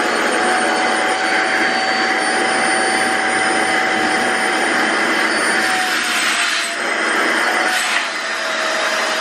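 Small electric vacuum pump running steadily, drawing the air out of a vacuum storage bag, a steady whine over a loud hiss. The sound dips briefly twice near the end, with a click at the second dip.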